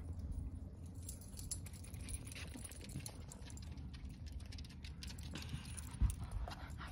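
Cavalier King Charles spaniels' paws pattering and claws clicking on a deck as they run up, over a steady low rumble, with a thump about six seconds in as a dog reaches the phone.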